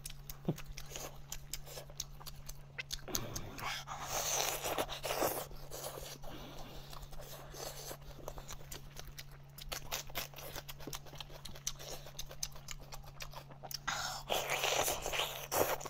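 Close-miked eating sounds from chewing goat shank meat: wet mouth clicks and smacks, with two longer breathy slurping stretches, about four seconds in and again near the end, over a steady low hum.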